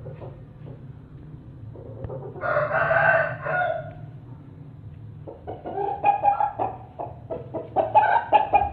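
Rooster crowing once, then a run of short, rapid clucking calls.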